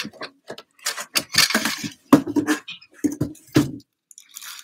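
Stiff white paper being handled, rustling and crinkling in short irregular bursts, with a brief pause near the end.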